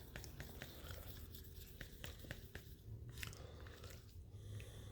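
Faint sticky clicking and scraping of two-part JB Weld epoxy being stirred and mixed together, with many small irregular ticks.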